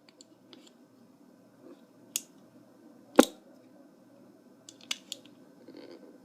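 Toy handcuff clicking as it is worked on a wrist: scattered light metallic ticks and two sharper clicks about a second apart, the loudest about three seconds in.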